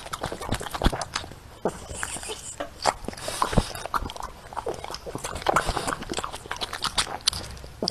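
French bulldog eating leafy greens from a bowl of broth: irregular wet chewing and lip-smacking clicks as it pulls a leaf from the bowl and licks its lips.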